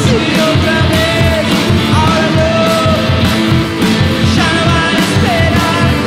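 A small rock band playing live: two electric guitars over a drum kit keeping a steady beat, with held, sliding melodic notes above.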